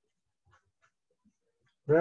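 Faint scratches and ticks of a felt-tip marker writing on paper, then a man's voice starting a drawn-out word near the end.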